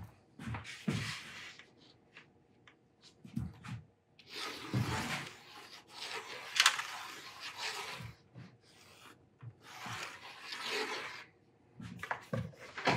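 Pencil scratching along plywood as it traces around the edge of a round turntable, in several long strokes with short pauses between, and a sharp tick about six and a half seconds in.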